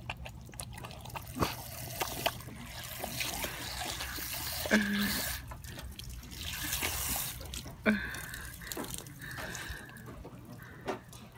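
Garden hose spray nozzle hissing while a Newfoundland puppy laps and bites at the water, with wet clicks and splashes. Two brief squeaks stand out, about three seconds apart.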